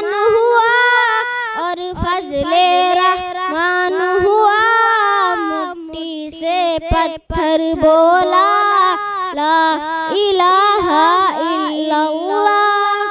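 A young boy singing a naat solo into a microphone, unaccompanied, in a long melodic line with held, ornamented notes.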